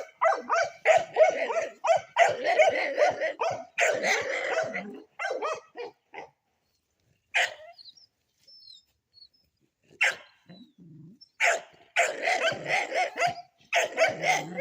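A dog barking and yelping in quick runs of short calls, with a pause of a few seconds in the middle before the barking starts up again.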